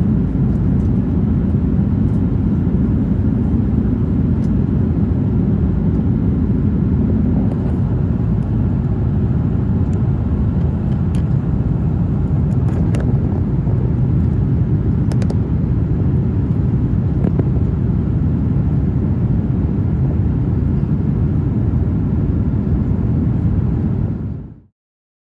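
Steady, loud cabin rumble of an Airbus A350-900 climbing after take-off: its Rolls-Royce Trent XWB engines and the airflow, heard from inside the cabin. It cuts off suddenly near the end.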